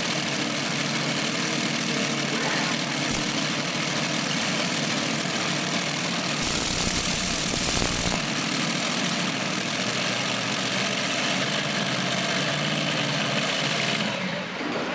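Modified pulling tractor's multiple engines idling steadily at the starting line. About six and a half seconds in, a flat burst of hiss lasts under two seconds.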